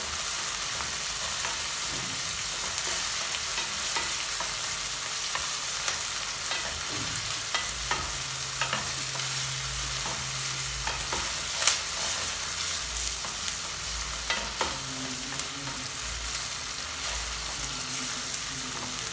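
Sliced onions sizzling in hot oil in a pot: a steady frying hiss with scattered sharp clicks.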